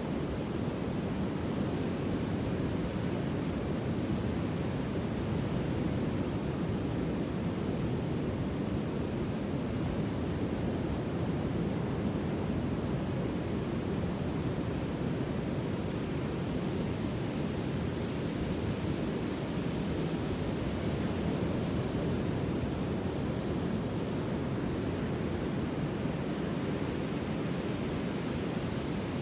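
Sea surf: a steady, even wash of waves, with no separate breakers standing out.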